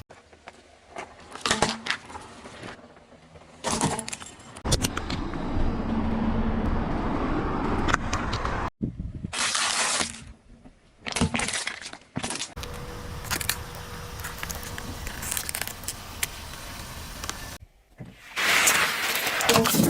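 A car rolling over and crushing objects, with crunching, cracking and breaking sounds, in several short takes that start and stop abruptly.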